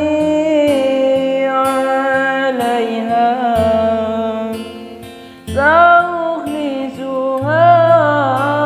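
A man singing an Arabic-language pop ballad over acoustic guitar, holding long notes; his voice falls away briefly about five seconds in before the next line begins.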